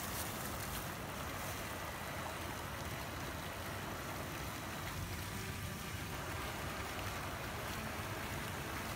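Steady splashing and trickling of a small garden-pond fountain jet falling back into the water.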